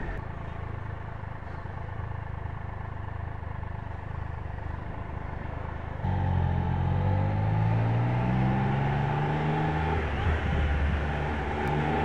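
2016 Triumph Trophy 1200SE's inline three-cylinder engine running on the move, with road and wind noise. About halfway through it gets suddenly louder and its pitch rises and falls with the throttle.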